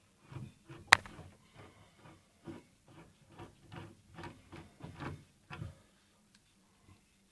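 Irregular light clicks and knocks of metal tap parts and tools being handled, roughly two a second, with one sharp click about a second in, then stopping.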